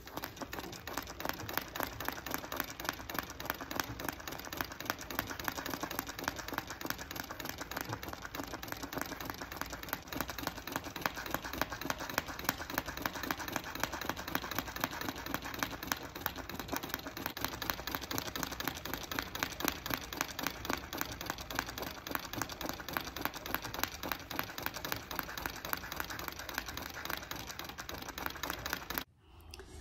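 Treadle sewing machine running steadily, free-motion stitching through water-soluble paper in an embroidery hoop: a fast, even clatter of needle strokes, a lot noisier with paper than with fabric. It stops suddenly just before the end.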